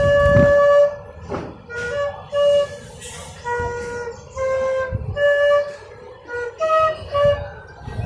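Flute played live, a string of separate short held notes stepping up and down in pitch, with a low rumble under the first second.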